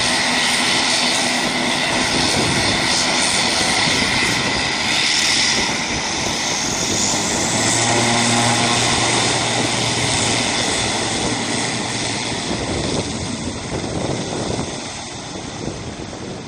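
Twin turboprop engines of an ATR 42 airliner running on the runway, with a steady propeller drone and a whine that rises about six seconds in. The sound fades over the last few seconds as the aircraft moves away down the runway.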